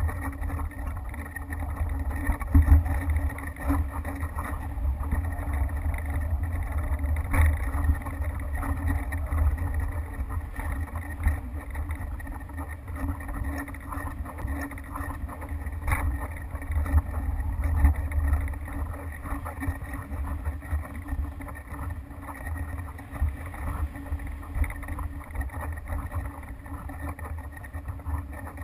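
Wind buffeting the microphone of a GoPro hanging from a kite aerial photography rig: an uneven low rumble that swells and dips, with a few light clicks from the rig.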